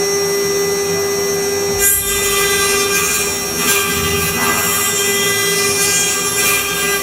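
Spindle of a JCID EM02 CNC chip-grinding machine running with a steady whine during a fine grinding pass on a chip. A hissing grinding noise joins in about two seconds in.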